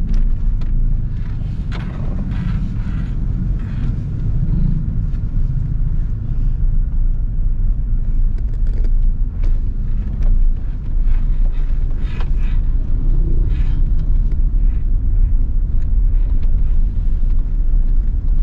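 Car driving at low speed, heard from inside the cabin: a steady low engine and road rumble, with a few faint clicks and knocks over it.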